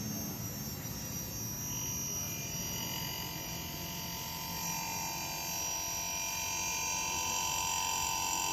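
Inverter air-conditioner compressor, driven from a bench-tested outdoor board, running with a steady hum; a high steady whine joins it about two seconds in. It is running normally now that the board's IPM module has been replaced for an L4 error.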